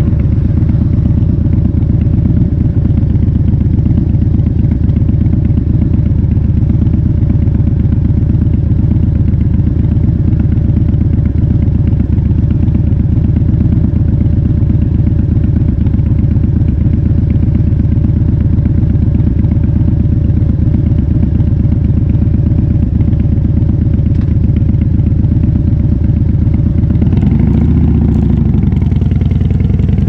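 Harley-Davidson Fat Bob V-twin with a KessTech ESM3 exhaust idling steadily, then revving up and pulling away a few seconds before the end.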